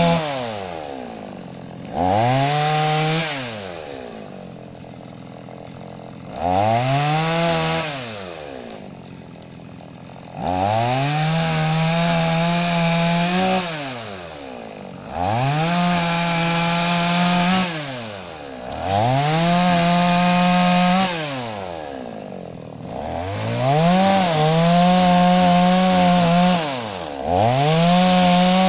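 Two-stroke chainsaw revved up to full throttle and held there for one to three seconds, then let back to idle, about seven times over, as it makes short cuts through an oak top.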